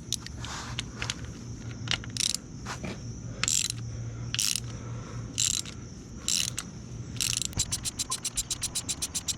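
Socket ratchet wrench clicking as it loosens a motorcycle oil drain plug: a ratcheting back-stroke about once a second, then near the end a fast run of clicks as the loosened plug is spun out. A steady low hum runs underneath.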